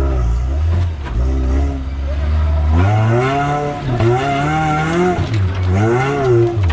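Modified off-road vehicle's engine running steadily at low revs, then revving up and down repeatedly over the last few seconds as it is driven hard.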